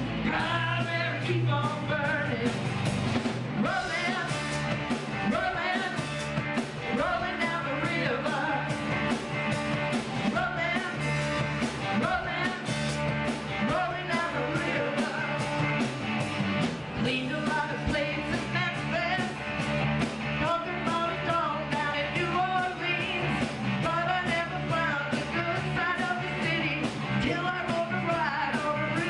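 Live rock band playing with a steady drum beat, electric guitar and bass guitar, and a woman singing lead.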